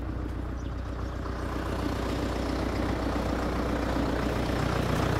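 Farm tractor's diesel engine running steadily, growing gradually louder.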